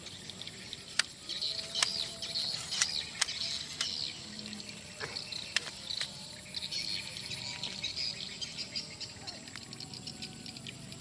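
High-pitched chirping of insects, with a handful of sharp clicks in the first six seconds.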